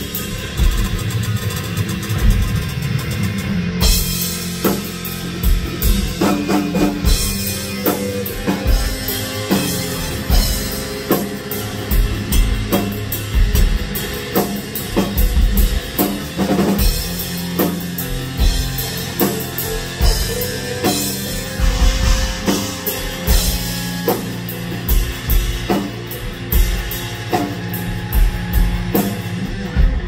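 Instrumental progressive rock played by a band: a full drum kit driving steady beats with bass drum and cymbals, under Chapman Stick and touch-guitar lines. The cymbals come in brighter about four seconds in.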